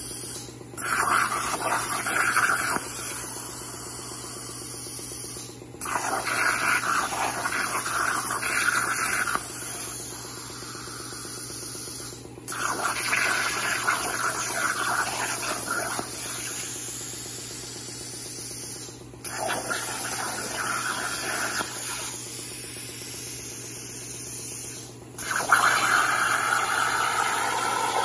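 Hypertherm 65XP plasma torch on a CNC table cutting steel plate: the arc and air make a steady hiss. It cuts out briefly five times, as one cut ends and the torch pierces the next, and each restart is louder for a few seconds before it settles.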